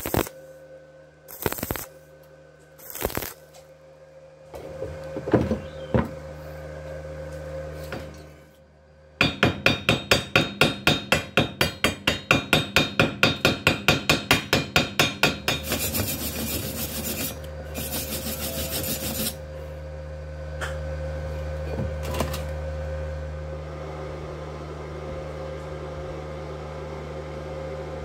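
Wire brush scrubbing slag off a fresh stick weld on thin steel square tube, in quick even strokes about three a second, then a harsher, more continuous scrub for a few seconds. A few short sharp sounds come before it, and a steady low hum follows.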